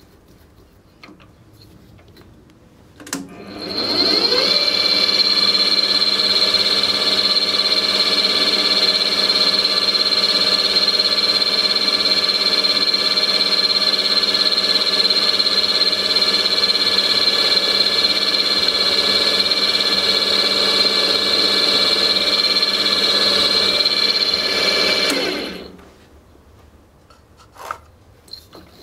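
Drill press switched on with a click, spinning up with a rising whine and then running steadily for about twenty seconds while a 5 mm tapping drill bores a grub-screw hole in a pulley hub, before it is switched off and winds down.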